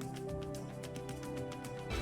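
Closing music with a steady beat, ending on a final chord struck at the very end.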